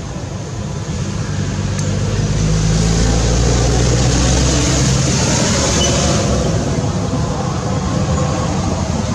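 A motor vehicle passing: engine rumble builds after about a second, holds for a few seconds with a rising hiss, then fades.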